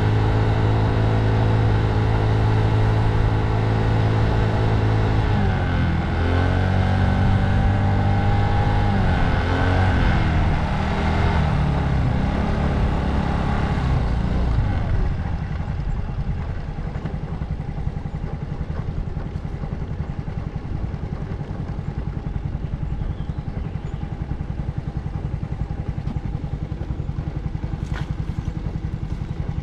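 Motor scooter engine running under way, its pitch dipping and climbing back twice as the revs change. About halfway through it drops to a quieter, rougher low rumble, with a couple of sharp clicks near the end.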